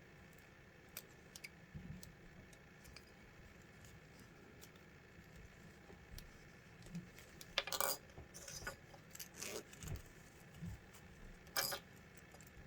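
Zipper pull being worked onto zipper tape by hand: small scattered clicks and clinks, with a louder stretch of rasping and clicking about two-thirds in and another short rasp near the end.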